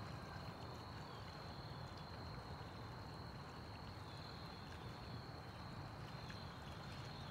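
Steady outdoor background noise: a low rumble with a thin, constant high-pitched tone over it and a few faint ticks.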